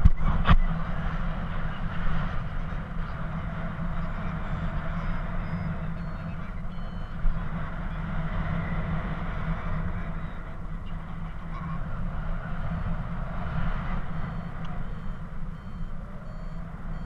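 Wind rushing over the camera microphone in flight, with a paragliding variometer giving short beeps that change in pitch, the audio signal of the glider climbing in rising air. A sharp knock right at the start.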